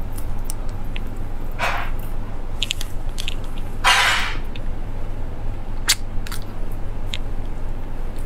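Close-miked eating sounds: a woman biting and chewing grilled meat off skewers, with scattered short mouth clicks over a steady low hum. Two louder, longer noisy sounds come about two and four seconds in.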